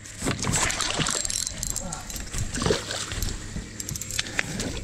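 Fabric rustling and rubbing close against the microphone, with splashing from a hooked striped bass thrashing at the surface beside the boat.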